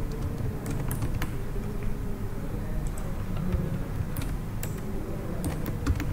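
Computer keyboard typing: scattered, irregular key clicks as a short entry is keyed in, over a steady low background hum.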